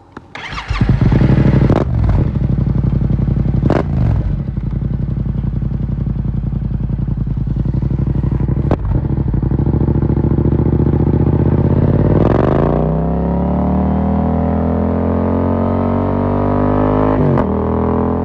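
Yamaha MT-07's parallel-twin engine through an Akrapovic carbon full exhaust, coming in loudly about half a second in, with a few sharp cracks over the first seconds. It then runs steadily, and from about two-thirds of the way in its pitch climbs as the bike accelerates, with a brief break near the end like a gear change.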